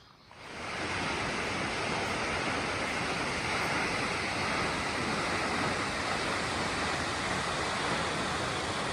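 Steady rush of a waterfall's falling water, coming in abruptly about half a second in and holding even.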